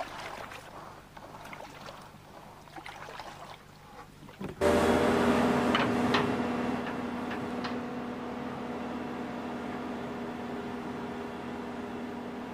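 Faint splashing and knocks as workers wade among wooden stakes in a river. About halfway in, a hydraulic excavator's engine comes in suddenly, loud and steady, as its bucket presses the wooden stakes down into the bank.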